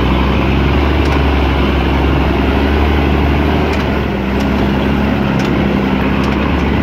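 Mercedes-Benz Unimog's engine running steadily as the truck drives, heard from its rear bed, with a low, even hum that dips slightly about four seconds in.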